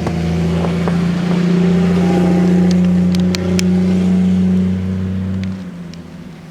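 A motor vehicle's engine running with a steady low hum, fading away near the end.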